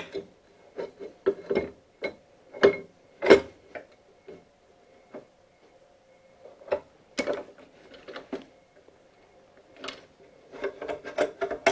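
Irregular metallic clunks and clicks as a 1.5-inch cold-rolled steel round bar is slid along the vise of a small horizontal metal-cutting bandsaw and the vise is clamped on it with its screw handle. The sharpest knocks come about three seconds in and about seven seconds in, with a quick run of clicks near the end.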